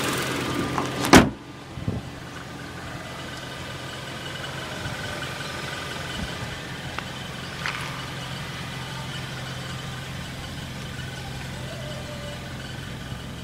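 2011 Kia Sportage's DOHC 16-valve inline-four idling steadily. About a second in there is one loud slam as the hood is shut.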